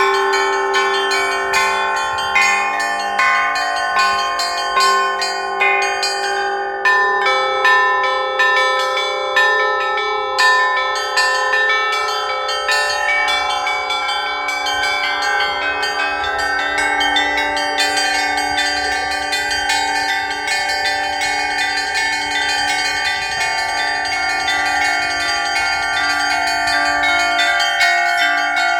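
Russian Orthodox church bells rung as a concert peal (zvon), together with bila, struck plates. Many bells ring over one another with rapid strikes. Heavier strokes come about once a second in the first half, then the ringing settles into a denser, even peal.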